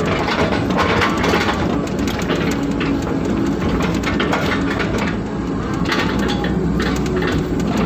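Hydraulic excavator's diesel engine running under load, heard from inside the cab, as the operator works the levers and the bucket digs and moves wet mud. Irregular crackles and scrapes run over the steady engine noise.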